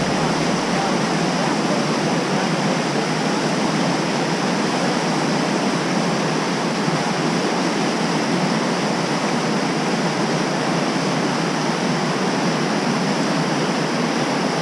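Fast whitewater of the Madison River rushing steadily, an unbroken even hiss.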